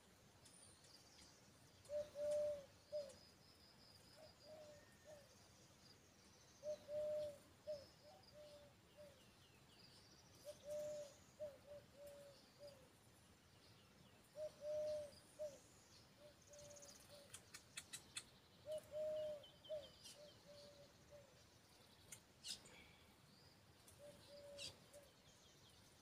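Weaver birds at their colony, chirping and chattering faintly in high notes, with a quick run of clicks about two-thirds of the way through. Below them, a bird's low call of a few short notes repeats every few seconds and is the loudest sound.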